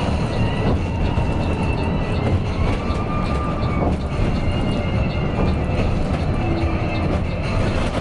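Coach bus running on the road: a steady low engine and road rumble with faint rattles and ticks.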